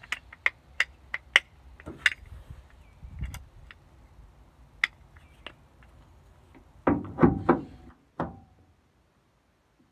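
Clicks and knocks of a Toyota Tundra bed-rail tie-down cleat being handled: a quick series of sharp clicks as its spring-loaded button is pressed, scattered ticks, then a burst of louder knocks about seven seconds in as the cleat is fitted into the bed-rail track.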